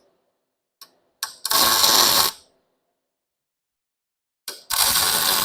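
Two tack welds on steel pipe: a welding arc crackling for just under a second each time, about three seconds apart, each preceded by a short click or two as the arc is struck.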